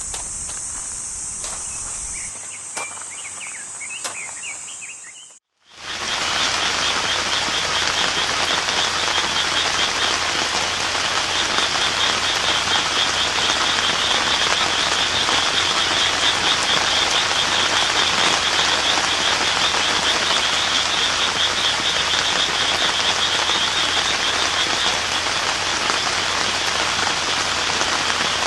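Steady rain falling, with a frog's rapid pulsing trill running through it for much of the time. Before a sudden cut about five seconds in there is only a high, steady insect drone with faint chirps.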